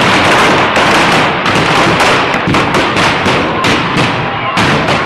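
Firecrackers packed into a burning Ravana effigy going off: a dense crackle of bangs that breaks into separate loud bangs, several a second.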